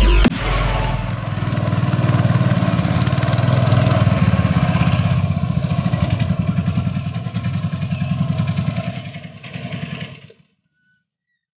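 A small engine running with a fast, even pulsing beat. It wavers in loudness toward the end and cuts off abruptly about ten seconds in.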